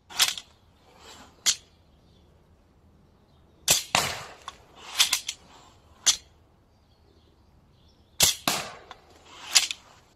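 Compound bow with a steel-ball magazine launcher being shot repeatedly: sharp snaps of the bowstring release and launcher, each with a brief rushing tail, in three clusters about four seconds apart.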